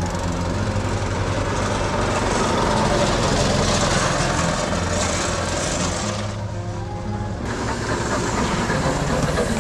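Go-kart engines running on the track, a steady low hum with a buzzing engine noise above it that swells a little in the middle and eases near the end.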